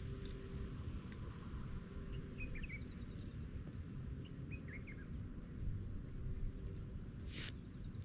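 Outdoor ambience: a steady low rumble with a few short bird chirps in two small clusters, about two and a half and five seconds in. A brief burst of noise near the end is the loudest moment.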